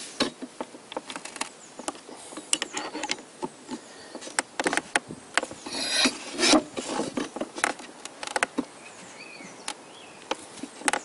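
Irregular clicks, knocks and scrapes of a steel breaker bar and a Toyota VVT-i camshaft on a wooden workbench as the camshaft sprocket bolt is tightened hard, to about 100 N·m. The busiest stretch comes about six seconds in.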